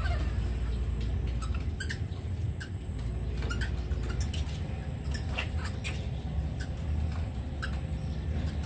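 Short, high squeaks and chirps from an animal, scattered irregularly, with a few sharp clicks over a steady low rumble.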